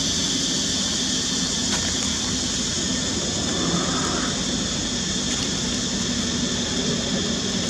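Steady, unchanging background drone: a continuous high-pitched shrill hiss over a low rumble.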